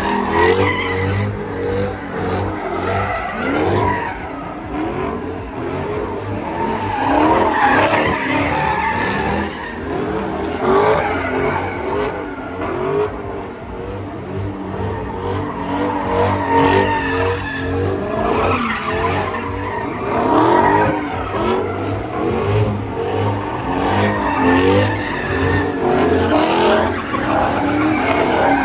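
Muscle cars doing burnouts and donuts, more than one at a time: engines revving up and down again and again, with tires squealing and skidding on the asphalt.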